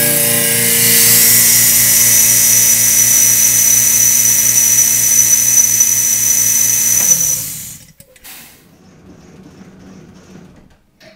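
The electric motor-driven air blower of a 1906 Victor Auxetophone running loud and steady, a low hum under a high, even whine. About seven seconds in it is switched off and winds down, its pitch falling, stopping within a second.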